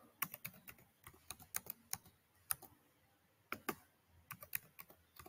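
Typing on a computer keyboard: a faint run of separate, irregularly spaced key clicks, with a short pause about three seconds in.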